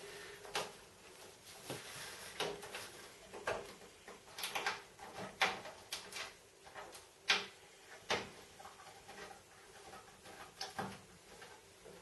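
Thumb screws being turned in by hand at the back of a Cooler Master PC tower case to secure the side panel: irregular light clicks and metallic scrapes of fingers, screws and panel against the case.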